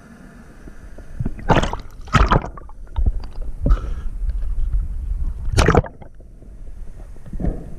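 Water splashing and sloshing around the camera as it breaks the sea surface and goes back under, in several short loud bursts over a low rumble. The sound turns duller once the camera is back underwater, near the end.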